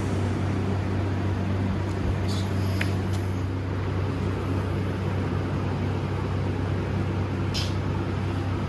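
Steady low electrical hum, unchanging throughout, with a few faint light clicks about two and a half seconds in and again near the end.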